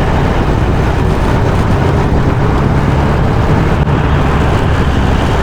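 Go-kart engine running steadily at speed, a dense low rumble with wind rushing over the microphone.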